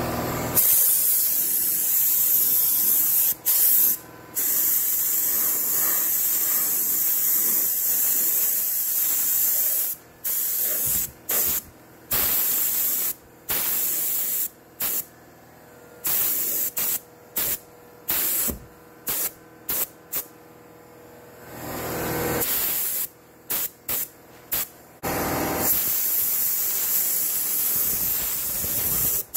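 Compressed-air spray gun spraying paint: a steady hiss at first, then a run of short hissing bursts as the trigger is pulled and let go, with steady spraying again near the end.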